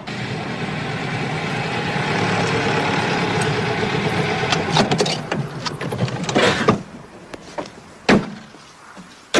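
A 1930s Mercedes-Benz saloon driving up and coming to a stop. Its running noise drops away about two-thirds of the way in, and a car door thumps about eight seconds in. The car has stopped because of a burst tyre.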